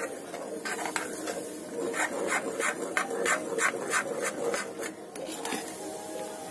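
Spoon scraping the bottom of a kadhai in quick strokes, about three a second, as semolina and gram flour roast in ghee for halwa, turned light golden. The strokes thin out near the end.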